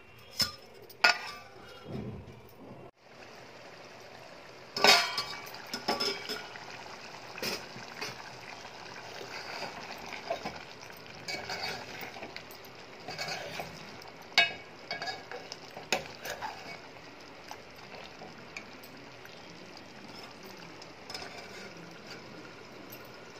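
A steel spoon stirring prawn curry in a metal pot, clinking and scraping against the pot's sides at irregular moments, the sharpest clink about five seconds in. Near the end a steel plate is set over the pot as a lid with a few light metal clinks.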